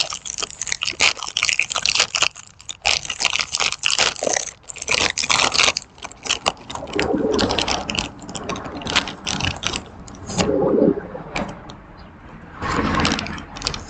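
Crinkly plastic snack bag being handled and opened, a dense run of crackles and rustles that thins out after about six seconds into occasional rustling.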